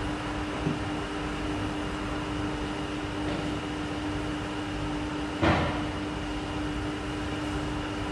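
Steady machinery hum with a constant low tone and a fainter high one, and a single short knock about five and a half seconds in.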